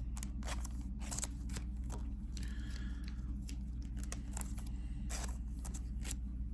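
Trading cards being handled and flipped through: an irregular string of short clicks and snaps as the cards slide against one another.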